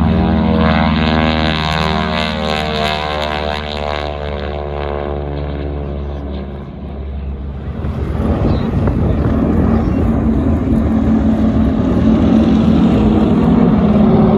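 Radial-engine propeller drone of North American T-6 Texan trainers: first a single plane climbing away, its pitch sliding slowly down as it passes. Then, about eight seconds in, a louder, rougher drone as a formation of T-6s flies over.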